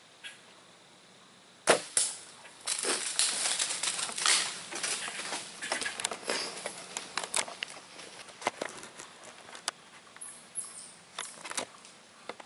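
A bow shot at a whitetail doe: one sharp, loud crack of the released bowstring and arrow about two seconds in, then several seconds of loud crashing and rustling through dry leaves and brush as the hit doe bolts away, thinning to scattered snaps and crackles.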